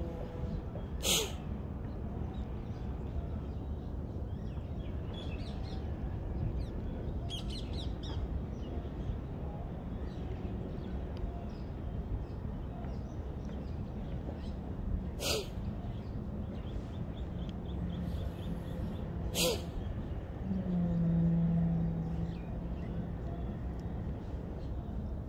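Outdoor background noise with birds calling now and then. Three sharp clicks are spread through it, and a low steady hum swells for about two seconds near the end.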